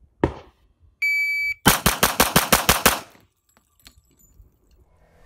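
A shot timer's start beep, then a Glock 41 pistol firing eight rounds of .45 ACP factory ball ammunition in one rapid string, about six shots a second, over roughly a second and a quarter.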